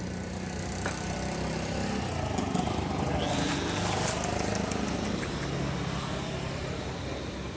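A motor engine running steadily, a low hum that grows a little louder and rises and falls in pitch around the middle, as from a passing or revving vehicle.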